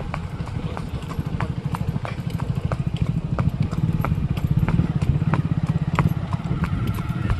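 A horse's hooves clip-clopping in a steady rhythm, sharp strikes about twice a second over a constant low rumble.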